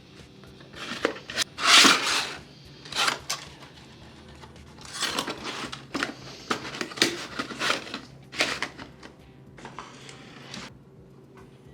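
Laptop packaging being handled and pulled open: a run of irregular scraping, rustling and tearing noises, the loudest about two seconds in.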